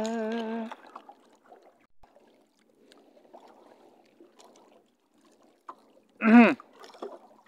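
A man's hummed 'la la la' trails off within the first second. Faint water sloshing follows, with small knocks around a small paddle boat. About six seconds in comes a short, loud vocal sound that slides down in pitch.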